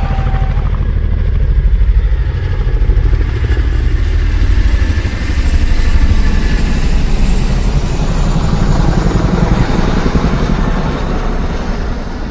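A loud engine running with a fast low throb that swells and eases every second or so, fading out near the end.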